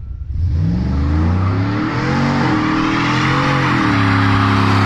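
V8 engine of a lowered GMC Sierra pickup with long-tube headers, running loud through its exhaust. Its pitch rises in the first second, it swells twice with short throttle blips, and it then holds a steady note.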